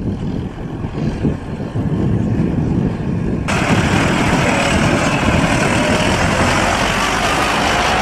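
Diesel farm tractors running as they pull grain trailers across a field, heard at a distance. About three and a half seconds in, the sound cuts to a much louder, closer tractor engine and trailer running along the road as a tractor with a tipping trailer drives close past.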